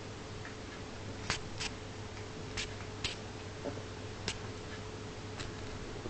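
Two small puppies play-wrestling, heard as sporadic light clicks and taps, about half a dozen spread unevenly through the few seconds, over a steady low hum.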